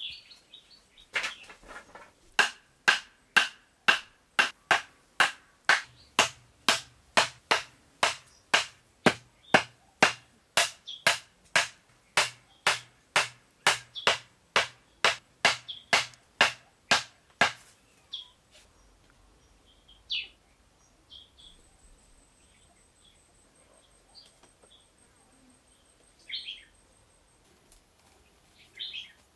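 Thin wooden stakes being pounded into sandy ground with a piece of wood: a steady run of sharp wooden knocks, about two a second, that stops about 17 seconds in. After that, scattered bird chirps.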